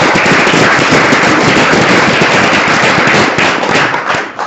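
Audience applauding, with one person clapping close to the microphone; the clapping dies away near the end.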